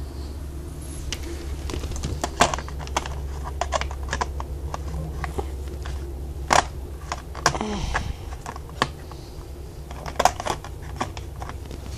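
Art supplies being handled: irregular light clicks, taps and clatters of small objects being picked up and set down, over a steady low hum.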